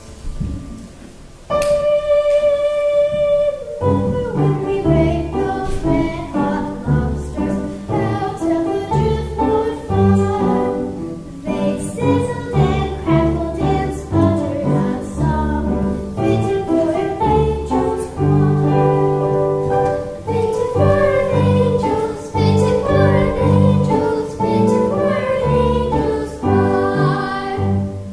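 A child singing a solo song with piano accompaniment, starting after a short pause about a second and a half in.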